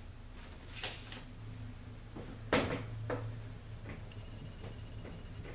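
A dry-erase whiteboard being wiped clean with a tissue: soft rubbing against the board, with a few knocks as the board is handled, the loudest about two and a half seconds in.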